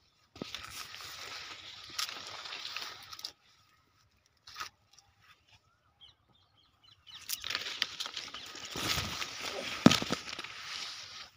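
Rustling of guava leaves and grass with footsteps through dry fallen leaves, in two stretches of a few seconds each with a quiet gap between them.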